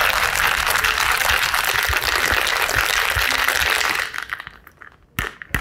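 Ice rattling hard in a sealed cocktail shaker being shaken, stopping about four seconds in. Two sharp knocks follow near the end.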